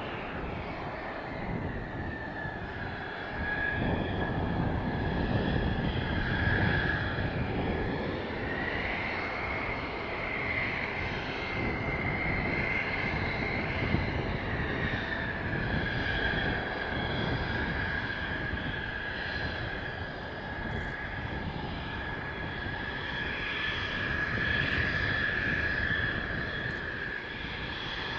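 Mitsubishi F-2 fighter's F110 turbofan running at taxi power: a steady high whine over a rumble. The whine rises a little in pitch about eight seconds in and settles back down around fifteen seconds.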